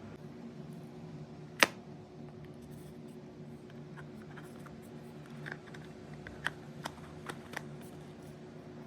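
Sharp plastic clicks and taps from handling a humidifier: one loud click about one and a half seconds in, then a few lighter clicks later on, over a steady low hum.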